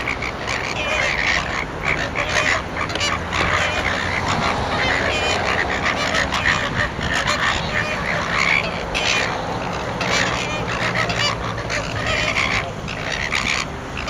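A flock of greater flamingos calling without pause during their group courtship display, many honking calls overlapping into a continuous chorus.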